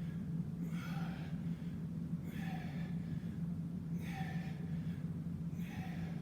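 Hard, rhythmic breathing of a man doing bodyweight squats, a forceful breath about every second and a half, roughly one per rep, from the exertion of a long set.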